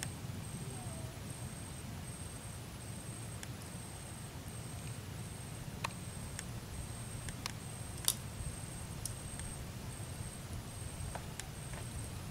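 Scattered sharp clicks and cracks of cooked crab and shrimp shells being broken and peeled by hand, the loudest about eight seconds in, over a steady low rumble and a thin high chirp pulsing on and off at an even pace.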